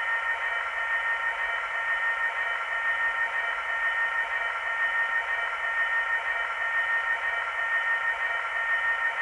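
Class 66 diesel engine sound from a DCC sound decoder, played through a model locomotive's small onboard speaker. It runs steadily with a few held tones and no bass, which gives it a thin, tinny sound.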